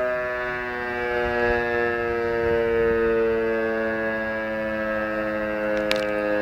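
Fire brigade alarm siren sounding its weekly test alarm, a steady wailing tone slowly falling in pitch. A short click comes near the end.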